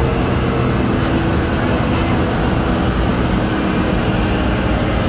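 Amphibious duck boat's engine running steadily under way, a constant rumble with a few held low tones.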